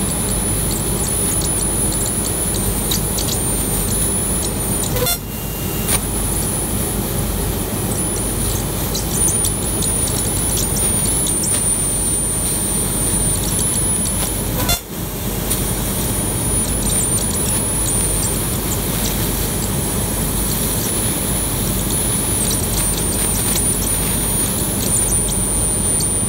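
CO2 laser cutter at work cutting through quartz stone veneer on wood: a steady machine noise with a thin high whine over it, dipping briefly twice.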